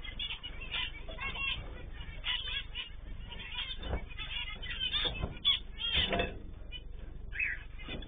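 A flock of zebra finches calling, with many short chirps overlapping, and a few thumps near the middle. The sound is picked up by a security camera's microphone, so there is no top end.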